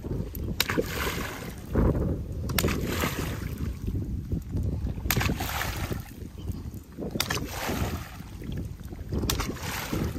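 A bamboo pole slapping and churning pond water, five splashing strokes about two seconds apart, over a steady rumble of wind on the microphone.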